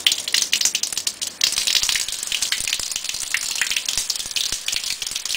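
Water from a wall tap gushing and splashing into the tiled trench of a squat toilet, flushing it.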